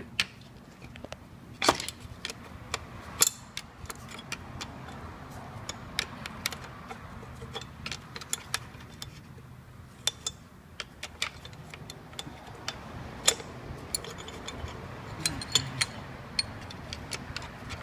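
Irregular metallic clicks and clinks of hand tools working on engine fasteners and parts, some sharp and loud, over a low steady background hum.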